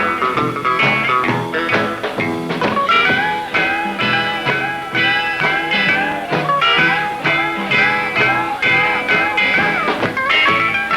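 Fast guitar instrumental: quick runs of picked lead notes with a few bent notes, over a steady band backing.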